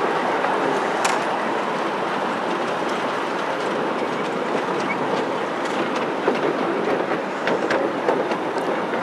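5-inch gauge miniature train rolling along its track: a steady rumble of small steel wheels on the rails, with a sharp click about a second in and scattered clicks from the rail joints later on.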